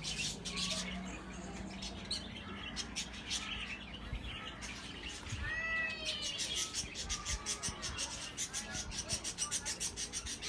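Small caged parrots chattering and calling: short arched whistles throughout, then a fast run of rapid chirping from about six seconds in.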